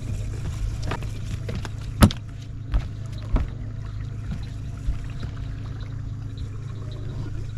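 Several sharp knocks on a fishing boat's deck, the loudest about two seconds in, over a steady low hum.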